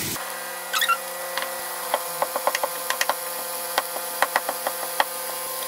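Kitchen knife chopping capers and olives on a wooden cutting board: irregular sharp taps, at times several in quick succession.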